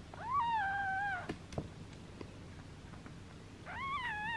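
A two-day-old kitten mewing twice, each high cry about a second long, rising at the start and then holding steady.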